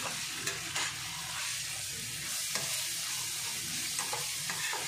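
Spatula stirring fried onions and spice paste in hot oil in a frying pan: a steady sizzle, with a few brief scrapes of the spatula against the pan.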